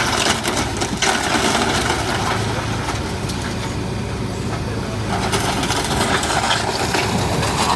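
A house being demolished: wood and debris crack and crunch as the structure is broken apart, over the steady running engine of a heavy machine. The crunching is strongest in the first second and again near the end.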